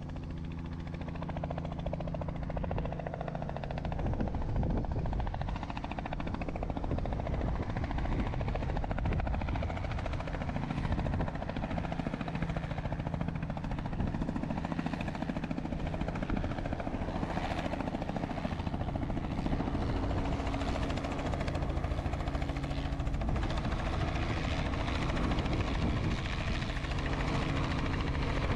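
Robinson light helicopter in flight on a slow, steep approach, its rotor and engine running steadily. The sound swells a little after the first few seconds and then holds.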